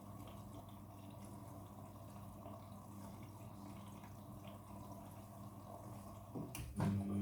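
Water trickling and dripping inside a front-loading washing machine, over a faint low hum. About six and a half seconds in there is a knock and a short clatter, then a steady hum starts up.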